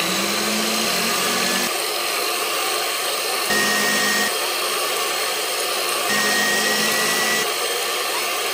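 Countertop blender running at full speed, blending a milkshake: a loud steady motor whine that holds throughout, with a lower hum coming and going a few times.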